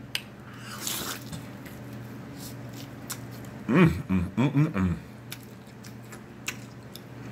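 Mouth noises of eating a sauced egg roll: soft chewing with wet lip smacks and small clicks, and a hummed "mmm" of enjoyment near the middle.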